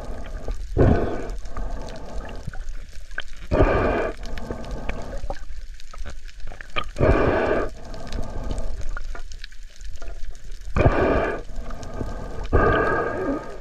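A spearfisher breathing through a snorkel: a loud, hollow breath rushing through the tube about every three seconds, five times, with a faint watery hiss between breaths.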